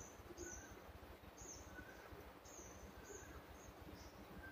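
Near silence, with a small bird chirping faintly: short, high chirps repeating irregularly, about one or two a second.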